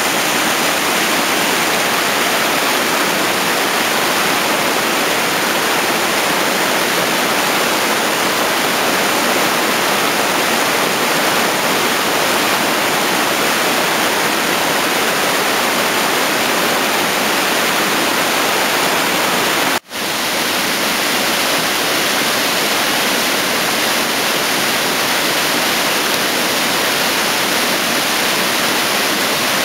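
Mountain stream rushing and splashing over rocks in small cascades: a loud, steady rush of water. The sound drops out for an instant about twenty seconds in.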